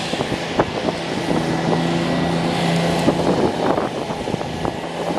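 Wind buffeting the microphone, with scattered knocks and rustling as belongings are gathered up. A steady low hum sounds for about two seconds in the middle.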